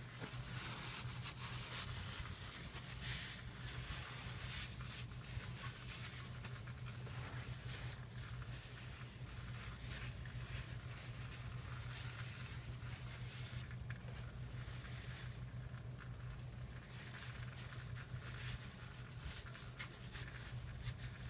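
Used gear oil dripping and trickling from the truck's rear differential into a drain pan, a soft irregular pattering and crackle over a steady low hum.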